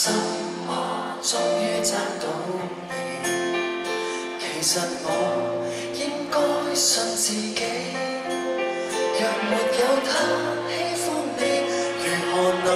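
Live band playing a pop song over the hall's sound system, with drums and cymbals, guitar and keyboards, and a male singer's voice on top. The music starts in at the very beginning.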